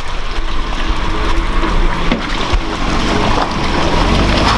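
Off-road truck driving through deep water: the engine running under a steady rush and splash of water.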